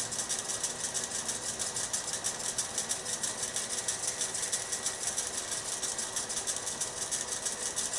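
Wood lathe running at low speed, a steady hum with a fast, even high-pitched ticking.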